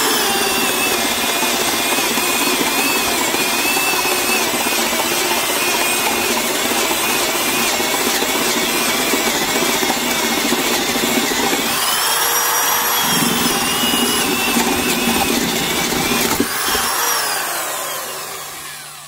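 Porter Cable 7514 half-inch corded drill running under heavy feed pressure, a dull 1.5-inch spade bit boring into wood, with a steady motor whine that it keeps up without strain. Its pitch rises briefly about twelve seconds in, and near the end the motor winds down with a falling whine.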